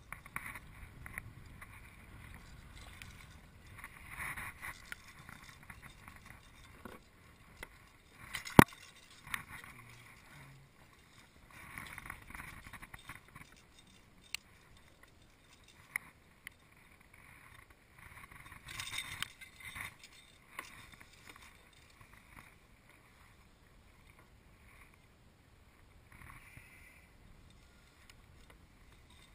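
Small waves lapping and splashing against a plastic sit-on-top kayak hull, in irregular washes. A single sharp knock about a third of the way in is the loudest sound, and a few lighter clicks follow.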